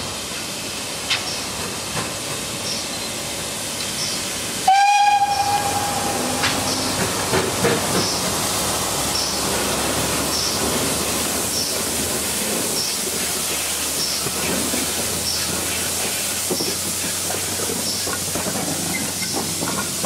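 Green pannier-tank steam locomotive sounding one short whistle about five seconds in, then running slowly in with steam hissing and its wheels clicking and knocking over the rails.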